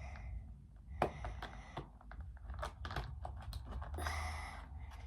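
Irregular light clicks and scrapes of plastic packaging being handled as a small battery is worked out of a pack, with a short scraping rustle about four seconds in.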